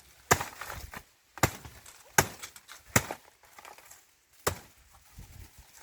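A blade chopping a cut banana plant into pieces: five sharp, unevenly spaced strikes.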